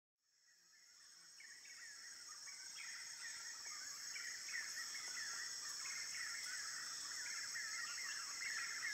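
Insects droning steadily at a high pitch, with many birds chirping and calling over them; the sound fades in from silence over the first few seconds.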